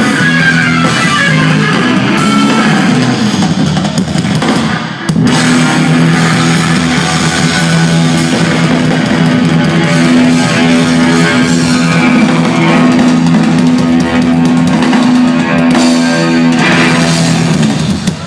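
Live rock trio of electric guitar, bass guitar and drum kit playing loud instrumental rock. About 5 s in the band breaks briefly, then holds one long sustained chord under drumming until the song stops near the end.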